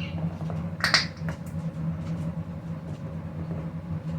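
Aloe gel being squeezed from its bottle: one sharp click about a second in, then a few fainter clicks, over a steady low hum.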